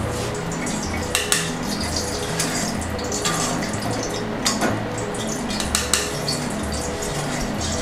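Metal kitchen utensils clinking against a pan and a steel plate on the stove: a handful of sharp, separate clinks spread over several seconds. Quiet background music with held, repeating low notes runs underneath.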